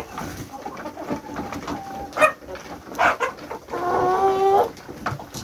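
Chickens clucking and calling, with short sharp calls around two and three seconds in and one long, steady call of about a second near the end.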